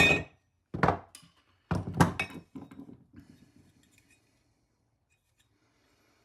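Metal knocks and clinks from the parts of a British Seagull outboard as it is worked apart. There is a sharp strike at the start, another just under a second later, and a cluster of three around two seconds in, tailing off into small clinks.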